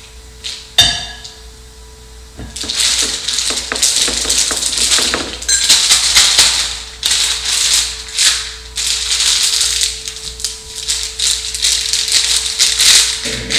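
Thin plastic piping bag crinkling and rustling as it is lifted and twisted closed around the batter. About a second in, a short ringing clink, like a spatula knocking against glass.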